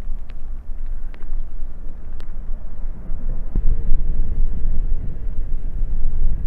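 Wind rumbling loudly and steadily over the microphone of a recumbent trike in motion. A few sharp ticks come in the first two seconds, and a faint steady hum about halfway through.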